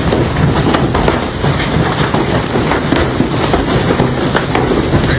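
Large hailstones pounding down in a dense, continuous clatter of many impacts.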